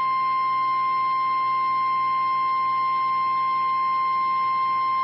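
NOAA Weather Radio 1050 Hz warning alarm tone: one steady, unbroken high tone, the signal that an urgent warning is about to be broadcast.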